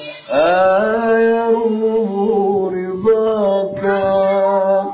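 A man singing unaccompanied in the Arabic devotional ibtihal style, drawing long held notes with melismatic turns. There is a quick breath just after the start and short breaks about three and four seconds in.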